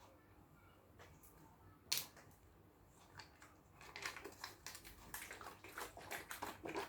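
Faint handling of a one-litre apple juice pack: a single sharp click about two seconds in, then a run of quick clicks and rustles from about three seconds on.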